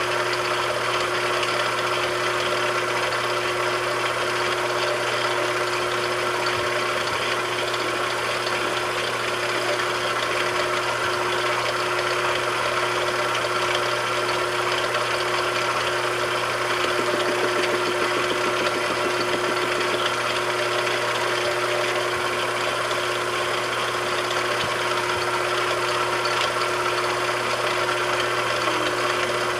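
A machine tool's motor running steadily, with a constant hum and whine.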